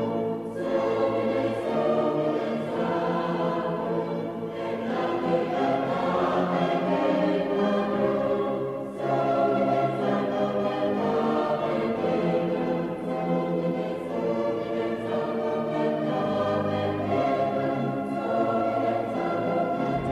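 Background choral music: a choir singing slow, held chords.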